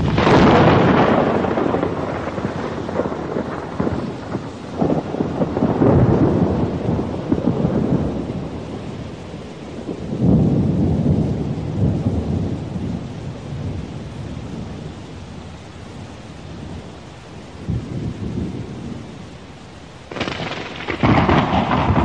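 Thunderstorm: steady rain hiss under rolling thunder, with a loud thunderclap at the start, rumbles swelling again several times, and another sharp clap near the end.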